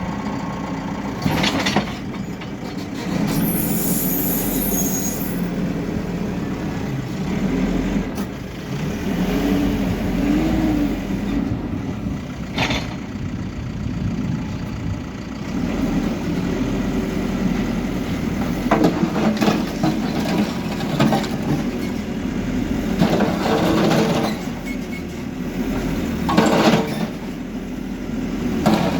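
Hidromek K4 Alpha backhoe loader's diesel engine running steadily under load while it knocks down a building. Several sharp crashes and clattering of breaking masonry and debris are spread through it.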